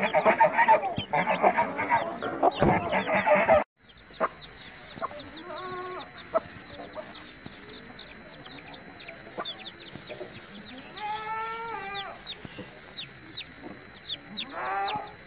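Chickens calling: a loud, dense jumble of clucks and calls cuts off suddenly about four seconds in. After that, young chicks peep steadily in many short, high, falling notes, with a few lower, longer calls around the middle and near the end.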